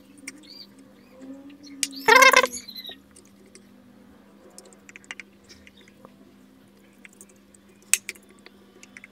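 Silicone pastry brush dabbing ghee over a paper-lined metal baking tray: faint scratching and light clicks. A brief pitched squeak sounds about two seconds in, and a faint steady hum runs underneath.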